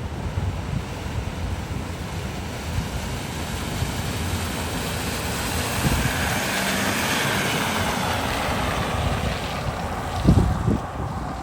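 A vehicle driving through a flooded ford, its spray and wash rising to a hiss about six seconds in and then fading. Wind buffets the microphone throughout, with a couple of heavy low thumps near the end.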